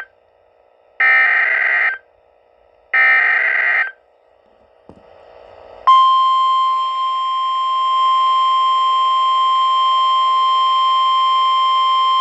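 NOAA Weather Radio emergency alert through a weather radio's speaker. The last two bursts of the SAME digital header, a raspy warbling screech about a second each, are followed by a faint click and then, about six seconds in, the steady warning alarm tone, which holds unbroken. This sequence announces a new warning, here a tornado warning.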